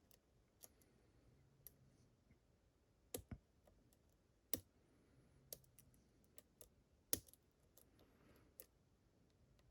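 Faint, irregular clicks and ticks of a lock pick and tension wrench working inside a challenge lock's cylinder, a few sharper clicks standing out about three, four and a half and seven seconds in.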